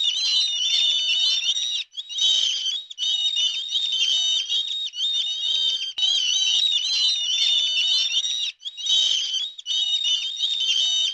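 A crowd of chicks peeping: many high, overlapping calls with a few short breaks.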